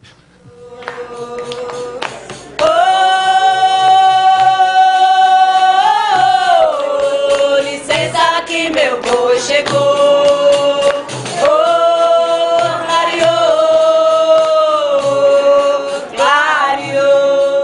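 A man singing long held notes in Portuguese over a steady low beat, heard from a video clip played over loudspeakers.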